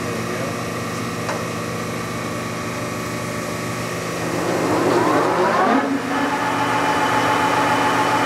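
Clausing 1250 Magnum engine lathe running under power with a steady mechanical hum, its spindle set to what is believed to be 400 RPM. About four seconds in, a rising whine climbs and the machine gets louder, then it settles into a steady, higher-pitched running tone.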